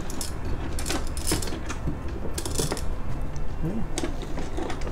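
A one-handed trigger bar clamp being squeezed tight onto wood, its trigger mechanism making a series of irregular sharp clicks.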